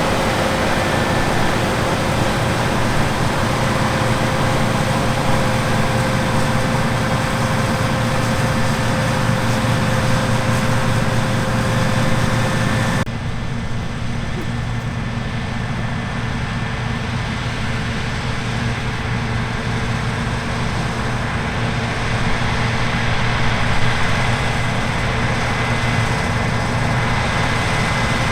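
Heavy harvest machinery running steadily during barley threshing. The sound changes abruptly about halfway through.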